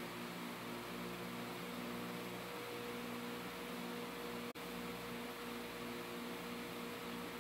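Steady background hum made of several held tones over an even hiss, with a momentary dropout about four and a half seconds in.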